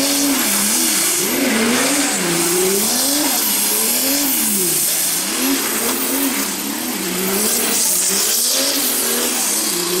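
Drift car engine revving up and down again and again, roughly once a second, as the car slides sideways on a wet track, with tyre noise hissing over it.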